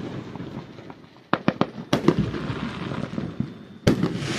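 Fireworks going off: sharp bangs, a quick cluster of them about a second and a half in, another just after, and a loud one near the end, with crackling in between.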